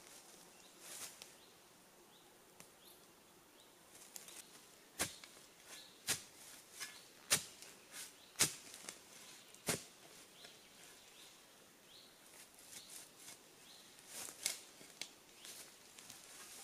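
A small digging tool striking down into the ground five times, sharply and about a second apart, then softer knocks and scrapes as the digging goes on.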